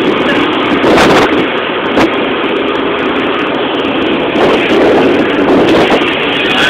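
Steady, loud noise of a moving road vehicle with air rushing past, with a few short knocks through it.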